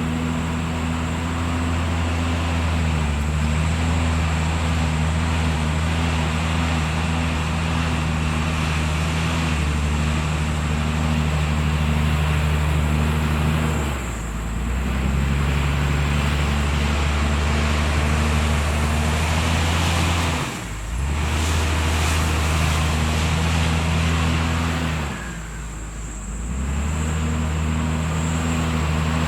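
Heavy diesel engine of a JCB 432ZX Plus loader running steadily while working, its note dropping briefly about three times.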